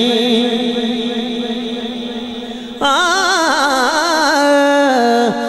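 A man singing a Punjabi devotional manqabat into a microphone. He holds a long note that slowly fades, then about three seconds in comes back loudly with a new phrase full of wide, wavering ornaments.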